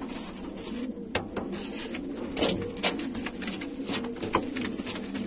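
Hungarian pigeons cooing, a low wavering coo that goes on throughout, with several sharp clicks over it, the loudest about two and a half and three seconds in.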